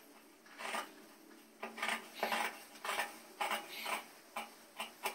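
Scissors cutting through denim and canvas interfacing in a series of uneven snips, slitting the zipper placket open along its centre line.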